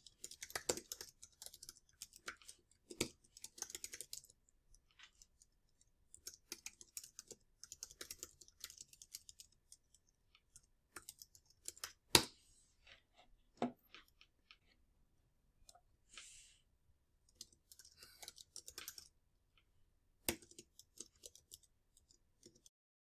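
Typing on a computer keyboard, fairly quiet: quick runs of keystrokes separated by short pauses, with a few louder single clicks between the runs.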